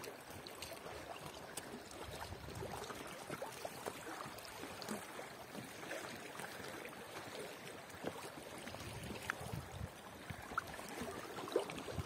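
River water lapping and gurgling around an inflatable boat on a flowing river: a soft, even wash of water broken by many small scattered splashes.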